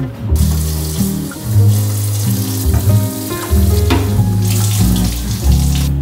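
Kitchen tap running and splashing over a soapy plastic fridge drawer being rinsed in the sink; the water starts about a third of a second in and runs nearly to the end. Background music plays underneath.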